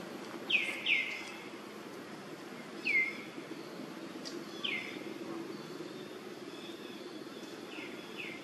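Bird calling: short, quick downward-sliding chirps, about six at uneven intervals, the first few the loudest, over a steady low background hum.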